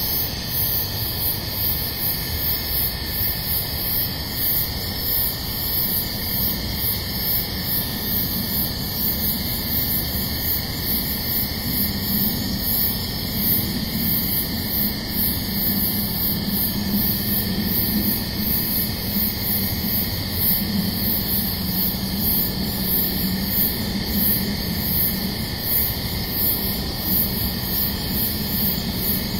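Steady hiss from a night-vision trail camera's microphone, with a faint high-pitched pulsing that repeats about every half second.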